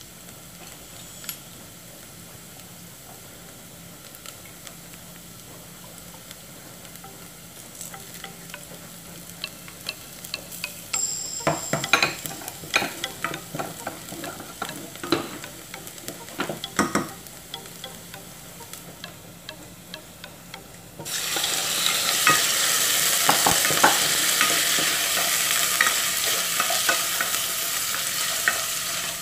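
Food frying in oil in a saucepan, with a spoon scraping and tapping against the pan. About two-thirds of the way through, chicken breast pieces go into the hot oil and the sizzling suddenly becomes much louder and stays loud.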